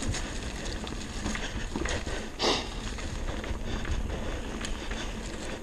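Mountain bike riding down a dirt trail: tyres rolling over dirt and dry leaves, the bike rattling and knocking over bumps, with wind noise on the microphone. A brief louder rush of noise about two and a half seconds in.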